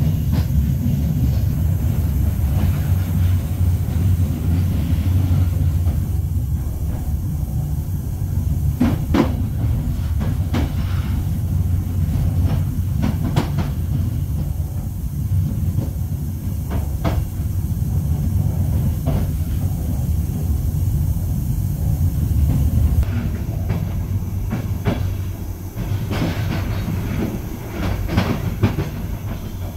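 Passenger train running along the line, heard from on board: a steady low rumble with the wheels clicking over rail joints every second or two. About two-thirds of the way through the rumble eases a little and the clicks come closer together.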